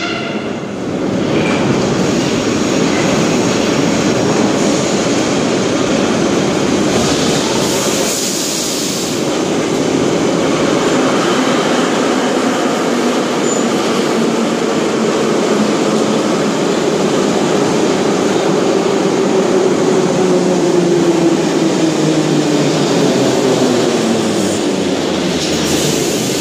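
Ezh3 (Em-508T) metro train running into an underground station and slowing along the platform: steady wheel and running noise, with a whine that falls in pitch as the train slows. There are short bursts of hiss about a third of the way in and again at the end.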